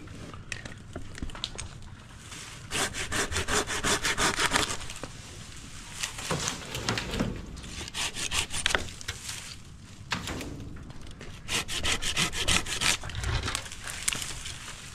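Hand saw cutting through a dead birch limb in three bouts of quick back-and-forth strokes, with short pauses between them.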